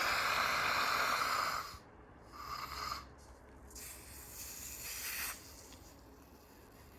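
Fire extinguisher being discharged to empty its pressure: a steady hissing rush of escaping gas that cuts off about two seconds in, followed by two shorter, weaker spurts of hiss.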